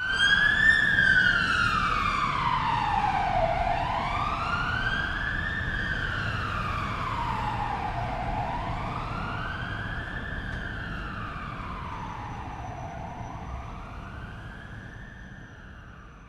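Police car siren in a slow wail, its pitch gliding up and then down about every five seconds over a low rumble. It starts suddenly and fades steadily away.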